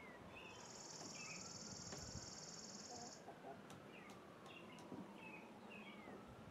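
Faint outdoor ambience of small birds chirping, with a high, rapid, dry trill lasting about three seconds from about half a second in.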